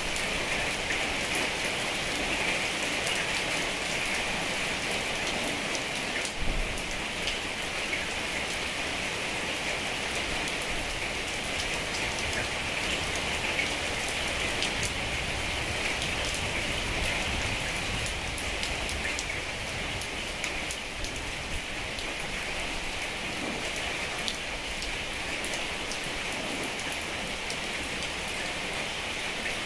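Heavy rain falling steadily as an even hiss, with many individual drops ticking through it. One dull thump stands out about six and a half seconds in.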